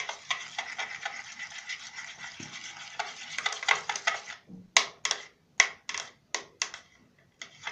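Homemade slime being stirred: a continuous wet, sticky stirring for about four seconds, then about eight separate strokes with short pauses between them. The mixture has just begun to come together into slime.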